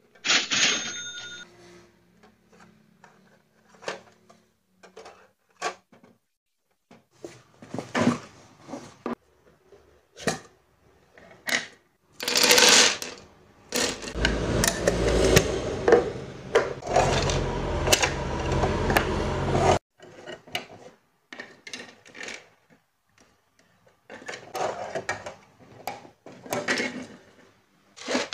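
Small plastic clicks and taps as a plastic drawer organizer and its clear drawers are handled and set down. From about 12 to 20 seconds in, a long, loud clatter as a tin of small resin charms is tipped out onto the desk, stopping suddenly.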